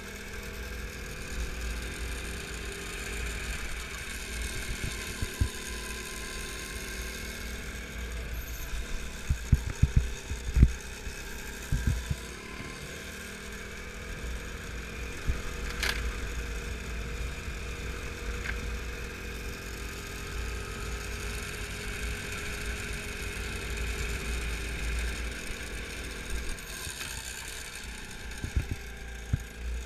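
Go-kart engine heard from on board, its pitch slowly rising and falling as the kart speeds up and slows through the corners, over a steady low rumble. Several loud thumps come around ten seconds in and again near the end.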